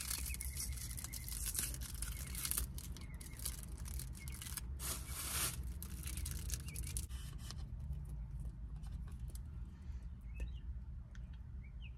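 Crinkling and tearing of a drink's packaging as it is opened, with many sharp clicks; the loudest burst comes about five seconds in. After about eight seconds only a few light clicks remain.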